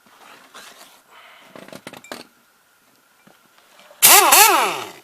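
Light clinking and handling of tools, then about four seconds in a pneumatic air wrench runs in one short burst of about a second: a hiss with a whine that rises and falls twice, then drops in pitch as it stops.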